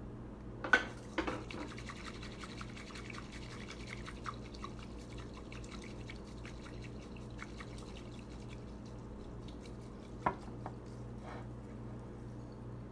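Water poured and dripping, with many small drips through the first half. Two sharp knocks come about a second in, and another about ten seconds in.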